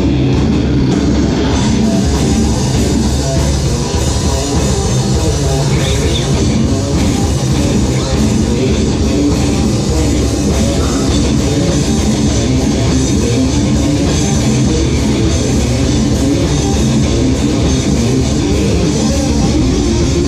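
Live rock band playing loudly: electric guitars, bass guitar and drum kit together in a heavy, continuous passage.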